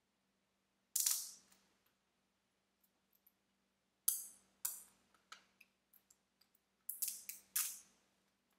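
Plastic packaging on a DVD case crackling in short sharp bursts as fingers pick and peel at it: one burst about a second in, several more around four to six seconds, and a quick cluster near seven seconds.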